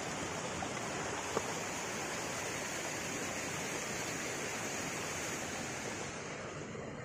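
A small rocky forest stream running over stones, a steady rush of water that grows softer near the end. A single brief click about a second and a half in.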